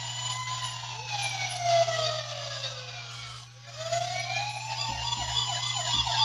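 A battery-powered toy emergency vehicle's electronic siren wails, slowly falling and then rising again in pitch over a few seconds. A few light knocks come in the second half.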